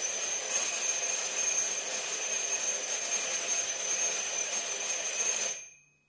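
Electric buzzer doorbell held down, giving one long continuous buzz that stops about five and a half seconds in.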